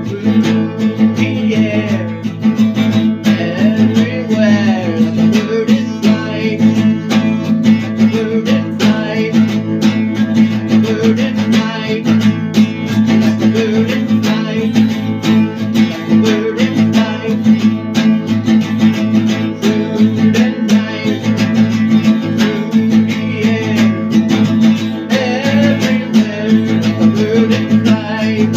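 Music: an acoustic guitar strummed steadily, with a wavering melody line over it.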